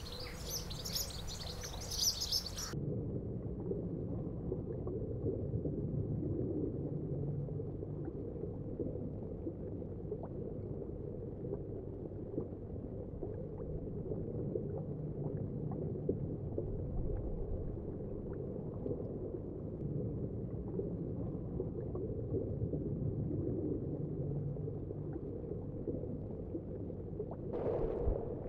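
Outdoor pond ambience with high bird chirps for the first few seconds, cut off suddenly. Then a steady, muffled low water sound with faint scattered ticks, as heard underwater, with a brief brighter splash-like burst near the end.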